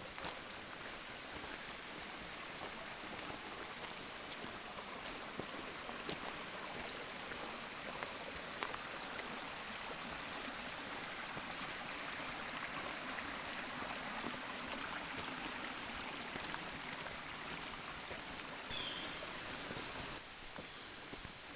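A stream running steadily, with footsteps on a leaf-covered dirt trail as light clicks over it.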